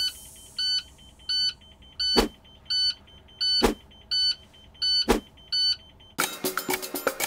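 School bus Child Check-Mate alarm beeping, a short high electronic beep repeated about one and a half times a second, with a sharp click about every second and a half. It is the alarm that goes off when the driver takes the key out of the ignition without first walking back to check the bus for children.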